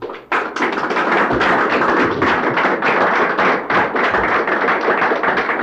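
An audience applauding: dense, even clapping from many hands, beginning just after the start.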